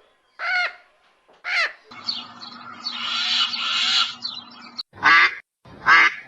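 Bird calls from several kinds in turn: two short harsh calls, then about three seconds of many birds calling together, then two loud quack-like calls near the end.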